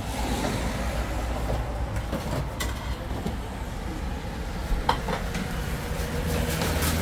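Steady low rumble of street traffic, with two sharp clicks about five seconds in.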